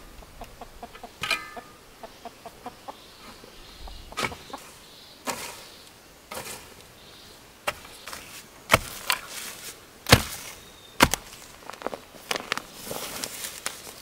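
A hand hoe chopping into dry soil, one sharp strike about every second from about four seconds in, each with a scatter of loose dirt.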